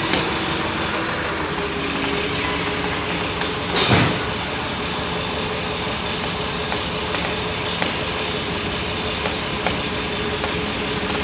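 A TCM forklift's engine running steadily as the forklift creeps forward with a heavy load on its forks, with a brief louder rush about four seconds in.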